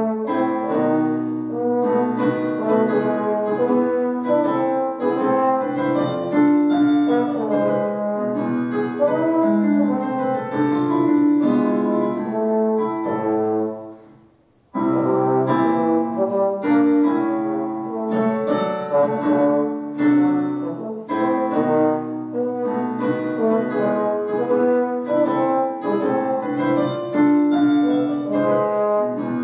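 Slide trombone playing a classical piece with piano accompaniment, in short detached notes. The music stops for a moment about fourteen seconds in, then both instruments resume.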